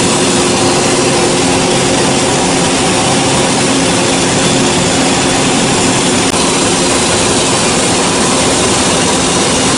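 Band sawmill running with a steady, unbroken mechanical drone and hum.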